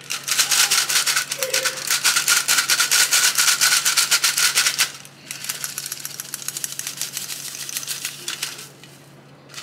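Hand-held stainless steel flour sifter being worked over a bowl, a fast rattling click as powdered sugar goes through the mesh. It comes in two bouts: a loud one of about five seconds, a short pause, then a quieter one of about three seconds.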